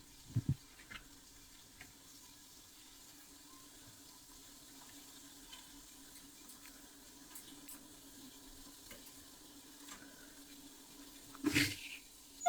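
Latch hook being worked through rug canvas: faint scattered clicks and rustles of the hook and yarn over a steady low hum, with a louder short rustle near the end.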